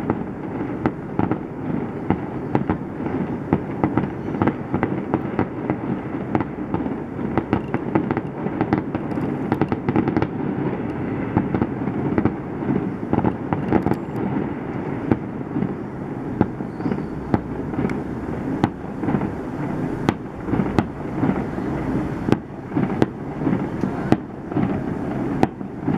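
Fireworks display: aerial shells bursting in a rapid, irregular run of bangs and crackles.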